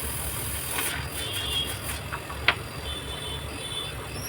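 LG single-door inverter fridge compressor running with a steady low hum, a sign that the seven-blink error, the compressor failing to start, has been cleared. A single sharp click about two and a half seconds in.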